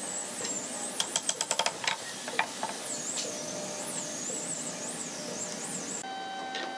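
A quick run of about seven sharp knocks about a second in, from carved wooden chair parts and a tin of stain being handled on a wooden plank, over steady background noise with a high, wavering whine.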